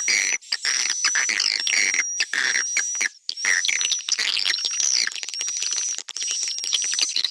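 Swiftlet call recording of the kind played to lure swiftlets into a nesting house: a lure call mixed with a roosting call. Dense, rapid twittering chirps and clicks run throughout, with a high held whistle repeated about once a second.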